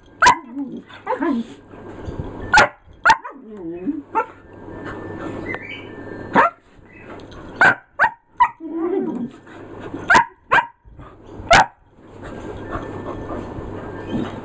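Two dogs play-fighting, with sharp barks every second or so and lower, wavering growls between them; the barking stops about twelve seconds in.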